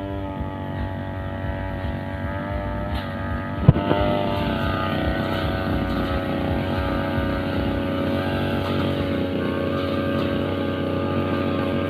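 Two-stroke brushcutter engine running steadily under load with a blade head, with one sharp knock about a third of the way in; after it the engine note sits a little higher and holds steady.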